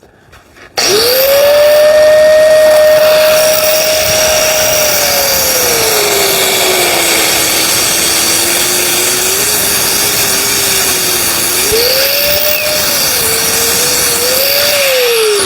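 Electric power tool cutting metal: the motor spins up to a high whine, its pitch sags under load through the middle of the cut, recovers, and winds down near the end, with a harsh hiss of the cut throughout.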